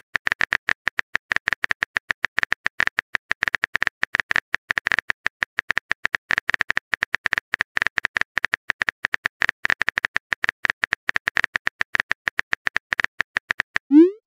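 Smartphone keyboard typing sound effect: a rapid stream of short key-tap clicks as a text message is typed out.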